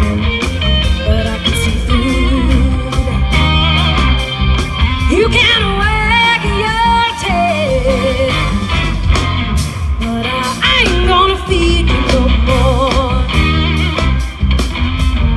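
Live blues-rock band playing loudly, with electric guitars over a steady bass and drum beat. A woman sings bending, drawn-out vocal lines over the band.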